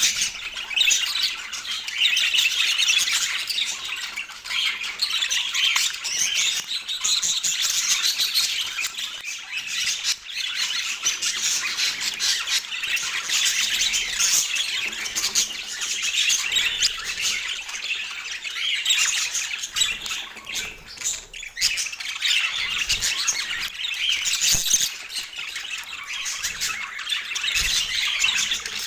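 Budgerigar warbling and chattering without a break, a dense stream of quick, high squawks and chirps.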